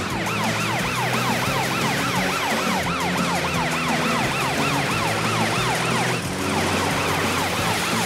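Police car siren sweeping rapidly up and down in a fast yelp, repeating several times a second, over a low steady hum.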